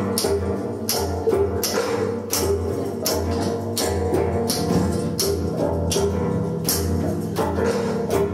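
Live experimental music: a steady beat of sharp, hissy percussion hits, about two a second, over sustained low tones and a deep pulsing bass note.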